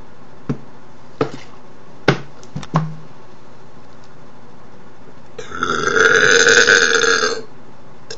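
A person's long, loud belch lasting about two seconds, coming a little past halfway. It is preceded by a few short clicks.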